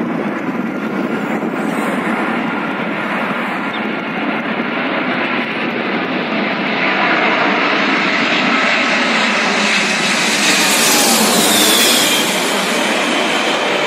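Four-engine jet airliner on final approach, its engine roar swelling as it comes in low and peaking as it passes overhead about eleven seconds in, with a falling whine as it goes by.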